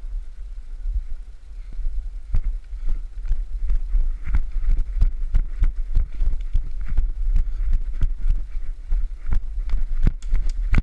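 Running footsteps on the woodland floor, quick and uneven, with a heavy rumble of wind and movement on an action camera's microphone.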